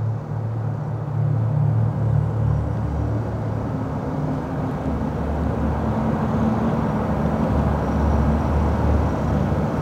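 A steady low rumble with a faint underlying hum, continuous and without distinct events.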